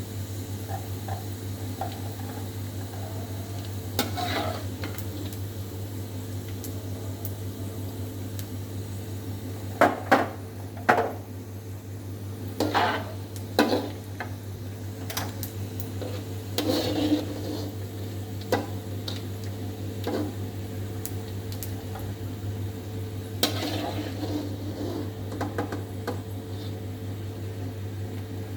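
Otak-otak fish cakes cooking in a pan with a steady sizzle, and a metal utensil clattering against the pan every few seconds, a few times in quick succession about a third of the way in. A steady low hum runs underneath.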